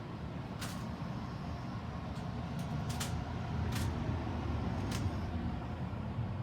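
A sleeping man snoring: a low, rough rumble that swells louder about halfway through, with a few faint clicks over it.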